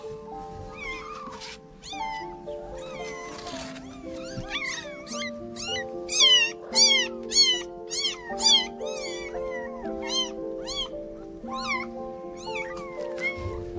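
A young kitten meowing in a rapid series of high-pitched cries, about two a second and loudest about six to eight seconds in, while it is being picked up and held. Background music with steady held notes plays underneath.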